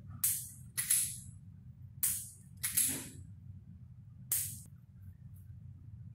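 A handgun being handled as the shooter makes ready: five sharp clacks over about four and a half seconds, over a low steady hum.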